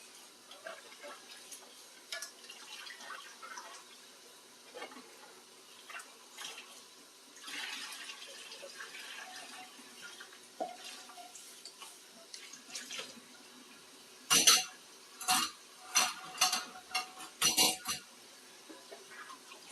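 Dishes being washed by hand in a sink: faint water and light clinks of crockery, then a run of loud clattering knocks of dishes against each other and the sink about three-quarters of the way through.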